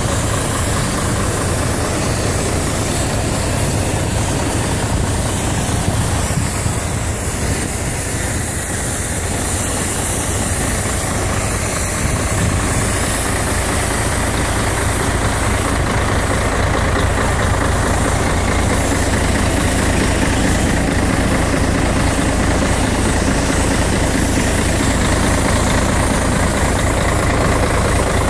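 Volvo FH12 420 truck's 12-litre inline-six diesel idling steadily.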